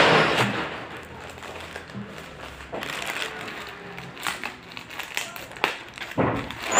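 White plastic courier mailer bag crinkling and crackling as it is crumpled and pulled open by hand, loudest at the start and again near the end.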